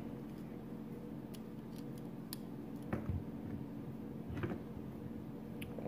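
Faint handling noises from a pinewood derby car being readied by hand: a few light, scattered clicks and taps from its rubber-banded CO2 cartridge and trigger parts.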